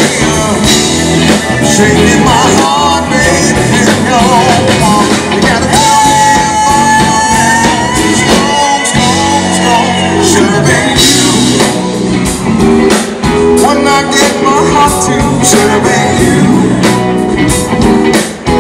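Live blues-rock band playing through a PA: electric guitars, keyboard and drums with a lead singer. A long note is held for about two seconds around six seconds in.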